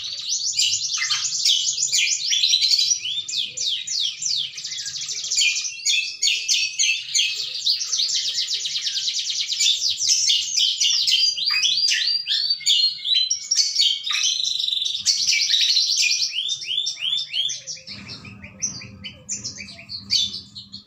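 Caged cucak kombo, a leafbird, in full song: a long run of rapid, varied chattering phrases and fast repeated notes, high and loud. Near the end the song thins to scattered quieter notes over a low hum.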